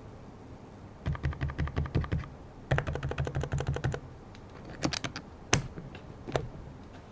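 Epomaker TH108 V2 Pro full-size mechanical keyboard with silent switches being typed on: two quick runs of keystrokes, then a few single key presses, one of them clearly louder about halfway through.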